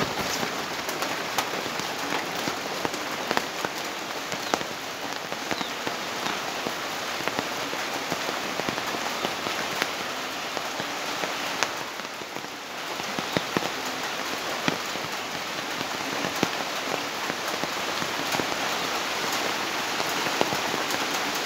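Heavy rain falling steadily, a dense hiss full of sharp drop strikes, easing slightly for a moment about halfway through.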